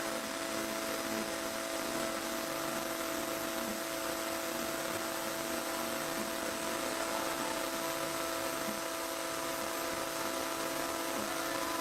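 Home-made CNC machine's spindle running steadily as it cuts a PVC wind-generator blade: a steady whine of held tones over an even hiss.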